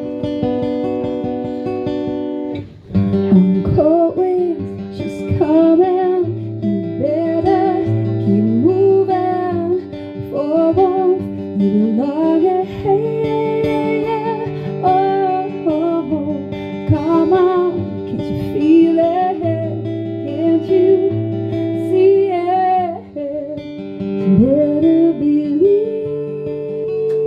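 Live acoustic music: a strummed acoustic guitar with a woman singing long, gliding melodic phrases over it. A short break comes about three seconds in, then guitar and voice carry on together.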